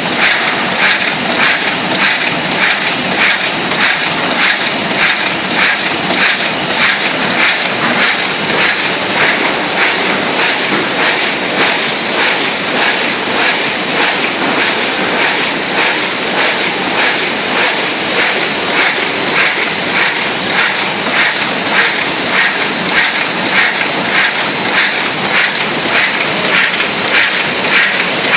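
Brauss automatic flatbed die-cutting machine running at production speed, a steady rhythmic clatter of about two strokes a second as it feeds and cuts sheet after sheet of printed board.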